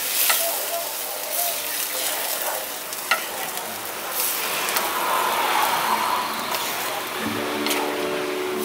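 Wooden spatula stirring red lentil dal in a non-stick pan, just after water was poured onto the hot oil and lentils: a sizzling, sloshing hiss with the spatula knocking the pan now and then, once sharply about three seconds in.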